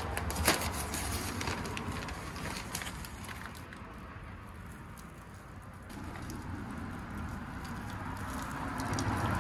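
Rustling and crackling of a plastic bag of garden soil being handled and soil being scattered by hand onto a garden bed, with a sharp click about half a second in.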